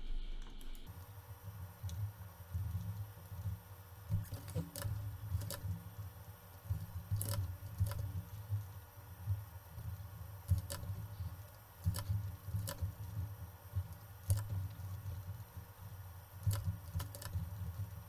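Irregular, scattered clicks of a computer mouse and keyboard as someone works at a desk computer, over a low, uneven rumble.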